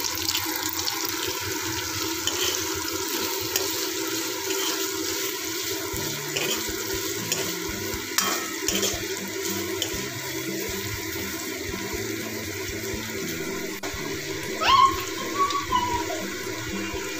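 Sliced onions sizzling steadily in hot oil in a wok, with a few clicks of stirring.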